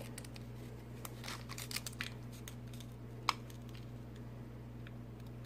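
Faint handling noises: a few light clicks and rustles, with one sharper click a little past the middle, over a steady low hum.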